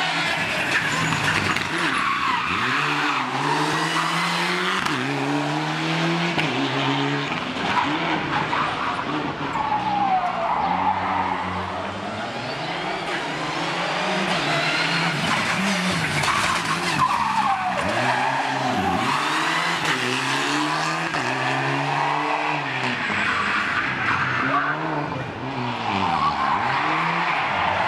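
Rally cars racing past on a tarmac street stage, their engines revving hard and falling away again and again through gear changes and braking, with tyres squealing.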